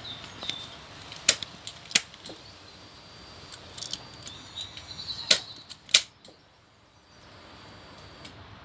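Ignition key switch on a Honda CBR1000RR Fireblade turned on and off, giving sharp clicks in two pairs, each pair about two-thirds of a second apart. A faint high steady whine runs under them and stops near the end.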